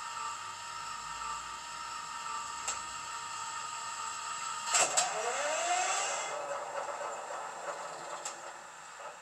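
ESU LokSound HiFi sound decoder in a Piko model of an ÖBB class 2016 diesel locomotive, playing its diesel engine start sound through a passive radiator speaker. A steady hum gives way, about halfway through, to two sharp clicks and a rising whine as the engine is cranked. The sound then dies away near the end.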